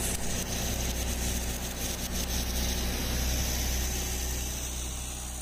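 An engine running steadily at idle, a low hum with a high hiss and light crackle over it.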